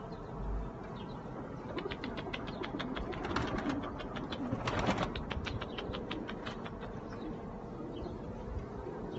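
Domestic pigeons cooing, with a burst of rapid wing flapping from about two seconds in that is loudest near the middle and dies away after about six seconds.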